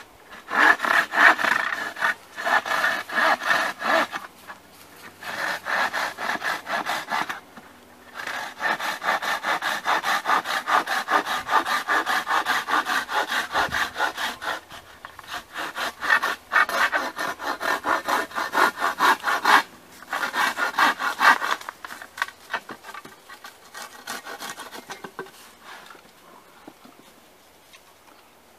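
Hand saw cutting across a wooden plank with fast back-and-forth strokes, in several runs broken by brief pauses, stopping near the end as the cut is finished.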